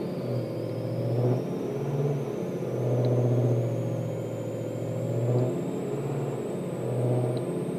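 BMW M3 making a low groaning sound that comes and goes in spells, the longest lasting a few seconds. A faint high-pitched whine rises slowly in pitch throughout.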